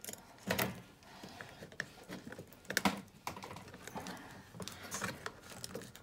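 Hands working the wire harness on a refrigerator's control board: scattered light clicks and rustles of plastic connectors and wires. The sharpest clicks come about half a second in and near three seconds.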